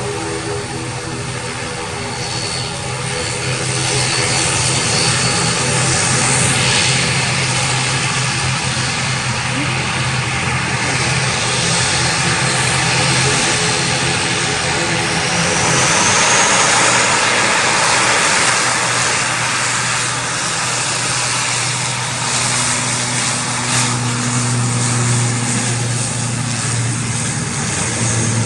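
ATR 72 turboprop engines and propellers running as the aircraft lines up and begins its takeoff roll: a steady low propeller hum under a broad rushing noise. The rushing noise swells a few seconds in and again around the middle, and the hum grows stronger near the end.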